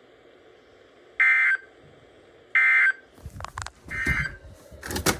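Two short, loud electronic beeps about a second and a half apart, then a fainter third beep, with low irregular knocks and rumbles starting in the second half.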